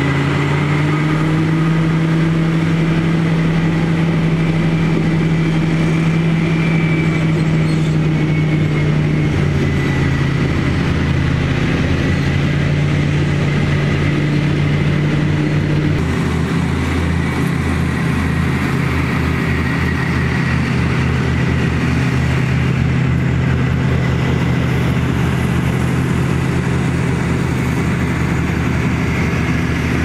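Komatsu GD655 motor grader's diesel engine running steadily as the grader works its blade through loose dirt. The engine note changes abruptly about halfway through.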